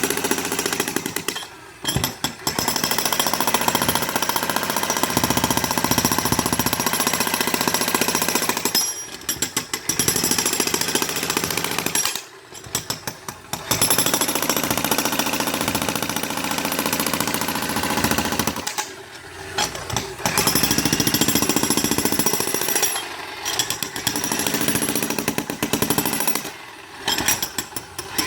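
Power demolition hammer chiselling through a concrete pool deck in long bursts of rapid blows, stopping briefly five or six times.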